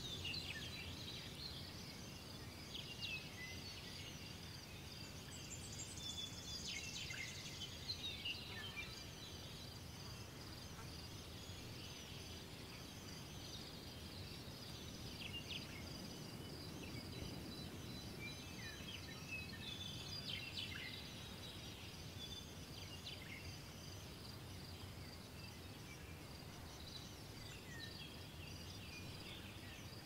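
Morning nature ambience: birds chirping with scattered short, quick calls over a steady high-pitched background chorus and a low hiss.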